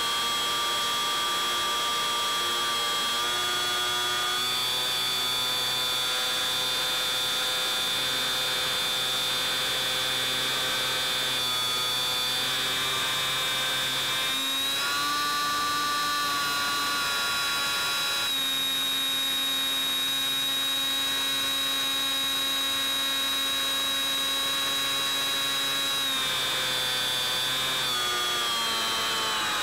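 Bixler 3's electric pusher motor and propeller whining steadily in flight, its pitch stepping up and down a few times as the throttle changes.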